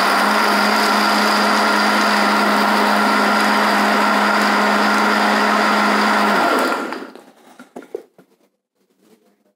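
Countertop jug blender running steadily at full speed, blending pineapple juice, coconut milk and ice, then switched off about six and a half seconds in and spinning down to a stop.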